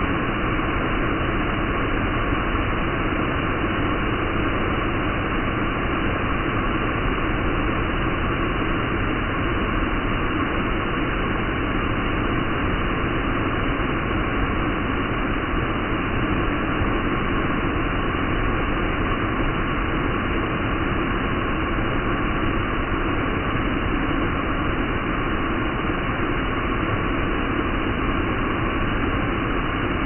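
Large waterfall pouring over rock ledges, heard close up: a steady, loud rush of falling water.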